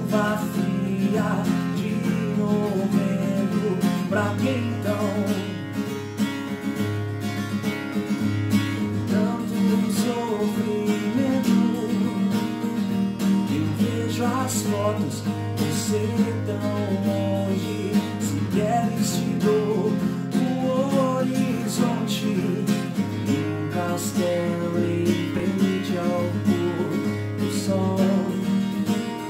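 Acoustic guitar strummed in a steady accompaniment: an instrumental passage between the sung verses of a song.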